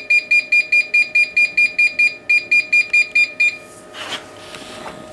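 Cavitation slimming machine's touchscreen beeping rapidly, about six short high beeps a second, as the intensity setting is stepped up to maximum. The beeps stop about three and a half seconds in, leaving a faint steady hum and a brief rustle.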